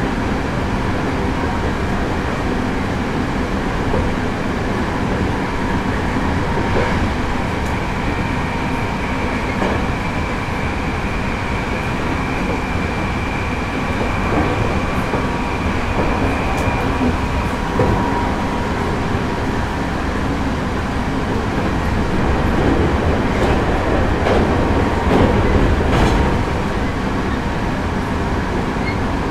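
Running noise inside a Hankyu 8000 series electric train (Toshiba GTO-VVVF) on the move: a steady rumble of wheels on rail with scattered clicks over rail joints. A steady high tone fades out a little past halfway.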